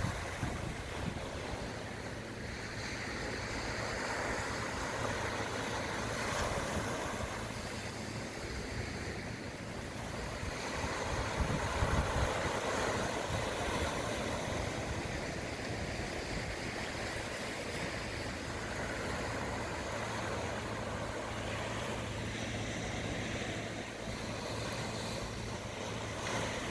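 Sea waves breaking and washing on the shore, surging louder every few seconds, with wind rumbling on the microphone and a steady low hum underneath.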